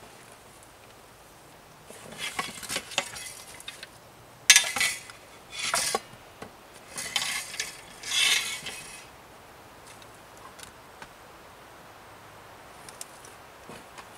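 Camp gear being handled and set down: a run of short rustles and light metallic clinks in several bursts, then only a few faint ticks for the last few seconds.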